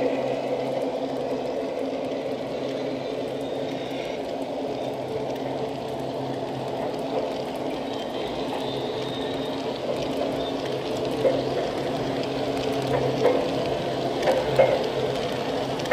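O-gauge model passenger cars rolling past on track, a steady rumble of metal wheels on rail. A few sharp clicks come in over the last few seconds.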